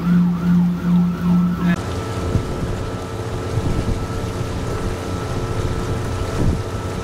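Siren wailing up and down over a pulsing low tone for about the first two seconds, cutting off suddenly. After that comes a steady hum of boat motor and water.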